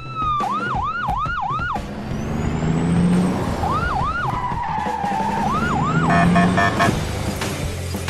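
Police car siren sound effect yelping in short rising-and-falling whoops: four in quick succession, then two more near the middle and two more about six seconds in, over a steady low rumble. A short buzzing burst follows just after the last whoops.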